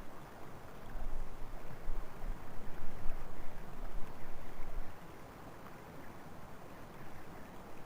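Wind buffeting a trail camera's microphone: a gusty, low rumble with a steady hiss, louder for the first five seconds and then dropping to a lower level.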